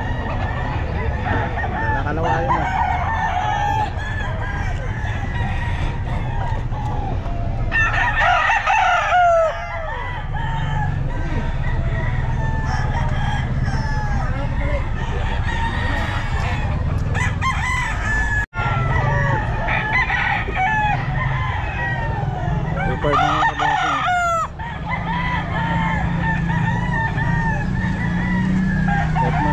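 Many gamecock roosters crowing and clucking all around, their crows overlapping. Two loud, close crows come about eight and twenty-three seconds in, over a steady low rumble.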